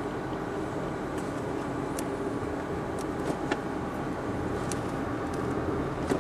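Car running on the road, heard from inside the cabin: a steady engine and tyre hum with a few faint clicks.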